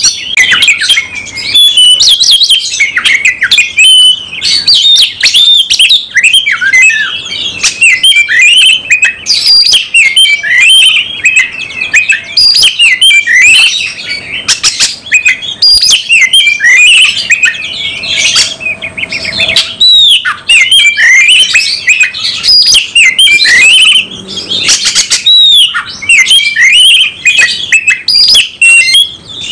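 Oriental magpie-robin (kacer) singing loudly in its keyed-up territorial 'fighting' song, a rapid, nearly unbroken stream of varied whistled and chattering phrases.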